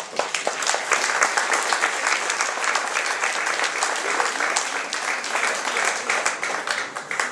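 Audience applauding: many hands clapping steadily, dying down at the very end.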